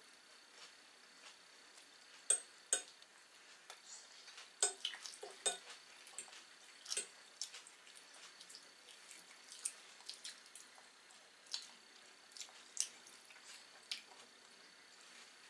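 A toddler eating bread: soft, irregular clicks and smacks of chewing and of the crust being handled, about a dozen scattered through.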